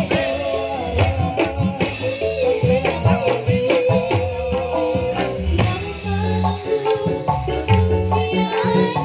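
Loud, upbeat dance music with a steady hand-drum rhythm, bass and a sustained melodic lead line, played over a sound system.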